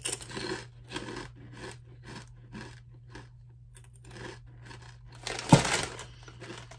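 Close-up crunching of a potato chip being chewed, about two crunches a second, with a louder crunch or rustle about five and a half seconds in.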